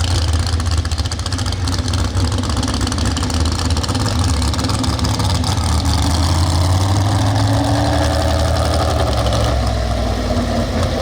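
Pro stock 4x4 pulling truck's engine running loudly and steadily, its pitch shifting somewhat about two thirds of the way in.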